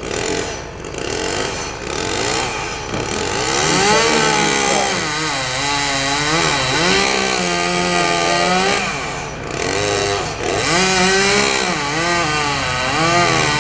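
Gas chainsaw revving up and down as it cuts into the tree, its engine pitch rising and falling again and again.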